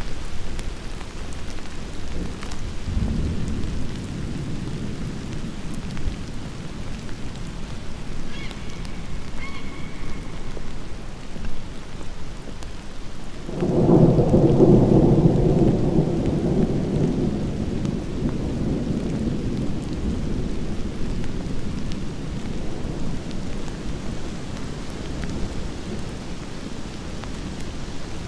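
Steady rain falling through a thunderstorm, with thunder: a low rumble about three seconds in, then a loud peal that starts suddenly about halfway through and rolls on, fading slowly over several seconds.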